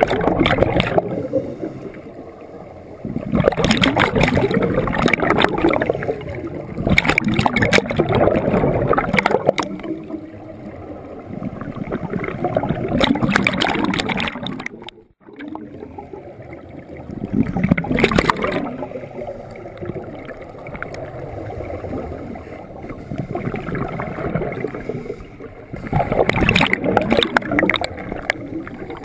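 Scuba regulator breathing heard underwater: a loud rush of exhaled bubbles about every three to five seconds, with quieter gaps between and a brief drop-out about halfway through.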